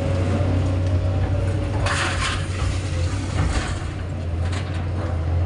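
Excavator's diesel engine running steadily with a deep hum, with three short bursts of machine noise about two, three and a half and four and a half seconds in.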